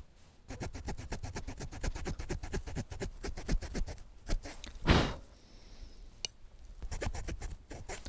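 Small folding multitool saw blade cutting down into the end grain of a soft poplar stick: a fast, even run of rasping saw strokes, a single louder, brief burst about five seconds in, then a few more strokes near the end.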